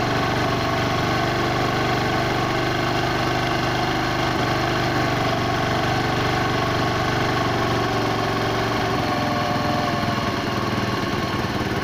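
Bajaj motorcycle's air-cooled engine idling at raised RPM while the carburettor's air screw is screwed in. About nine seconds in the engine note changes and drops a little as the RPM falls from the tightened air screw.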